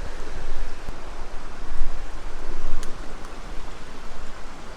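River water rushing and splashing in a steady, fairly loud wash of noise.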